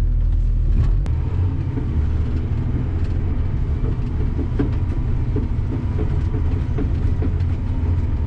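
Plow truck running, a steady low rumble with scattered light knocks and rattles. The deepest hum drops away about a second in.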